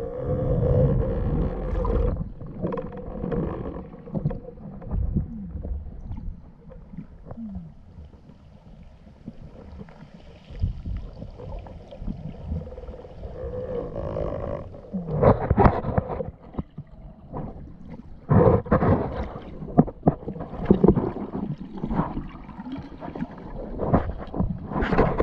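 Muffled underwater noise of a freediver swimming with a speargun: water rushing and gurgling past the camera, with irregular knocks and splashy bursts that grow busier in the second half.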